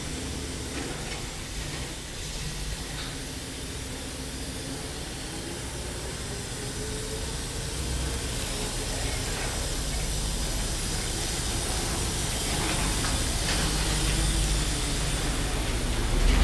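Chevrolet medium-duty stake-bed truck's engine running as the truck pulls out and drives closer, growing steadily louder, with a slight rise and fall in engine pitch.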